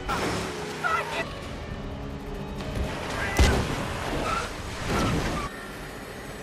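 Tense film soundtrack: a sustained music bed broken by several sudden heavy crashing hits, the loudest about three and a half seconds in.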